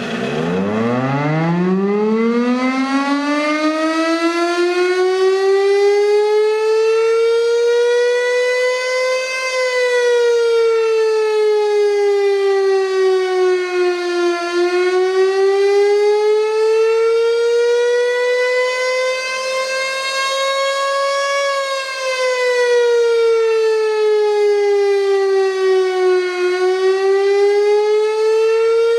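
Federal Signal STH-10 fire siren winding up from a low growl, its single tone climbing steeply in the first few seconds, then wailing loudly while the pitch slowly rises and falls, dipping twice.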